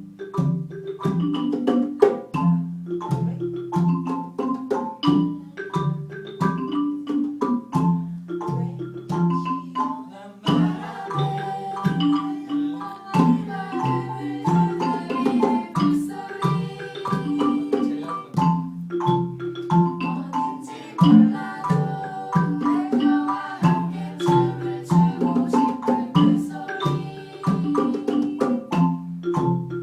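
Orff-style mallet percussion, xylophones with glockenspiel-like bells, playing a repeating pattern of struck pitched notes. The texture thickens about ten seconds in as more parts come in.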